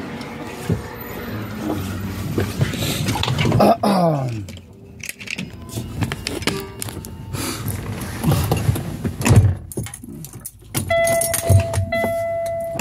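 Knocks, rattles and rustling as a man climbs up into a semi-truck cab and settles into the driver's seat. A steady high tone starts about two seconds before the end.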